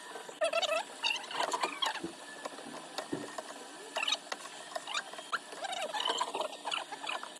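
Small repair tools working on an iPhone 12 Pro Max: irregular scraping, squeaking and light tapping, in short uneven strokes.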